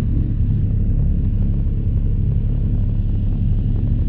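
Douglas DC-3's two radial piston engines running at low power after landing, a steady low rumble heard from inside the cockpit.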